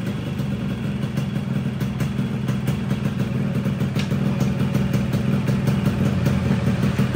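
Yamaha RX-King 135cc two-stroke single-cylinder motorcycle engine idling steadily through a newly fitted original full-set exhaust with a custom 'ngorok' (growling) baffle. The mixture is set slightly rich on a standard main jet, so the growl is kept mild.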